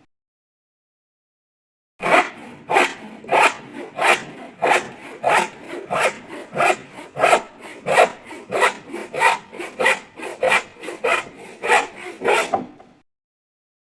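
Hand saw cutting with steady back-and-forth strokes, a rasping stroke roughly every two-thirds of a second with a lighter one between. It starts about two seconds in and stops about a second before the end.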